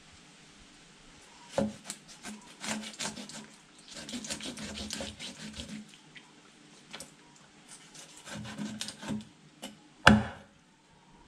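Large knife cutting through a tilapia on a wooden chopping block: a run of rasping, scraping strokes through skin and scales with a knock against the board, a pause, more strokes, then one loud chop onto the wood near the end.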